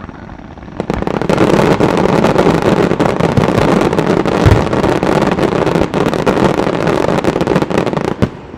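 Fireworks display: from about a second in, a dense barrage of rapid bangs and crackling that runs on for several seconds, ending with a few separate bangs.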